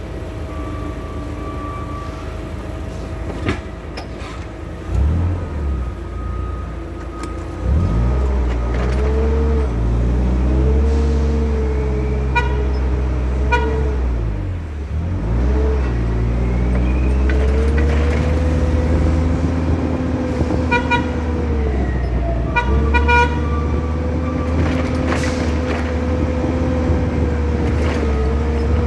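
Forklift running as it is driven. Its motor picks up about five seconds in and rises and falls in pitch as it speeds up and slows. The forklift's horn gives short toots at several points.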